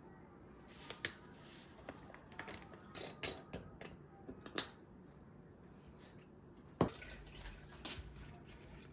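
Light clicks and knocks of kitchen handling, the loudest about four and a half seconds in, then a single thump near seven seconds followed by a low steady hum.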